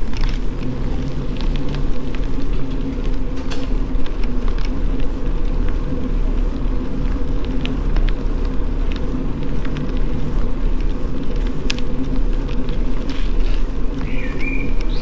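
Steady low rumble of a bicycle rolling along a paved path, heard from the rider's camera, with scattered light clicks and rattles.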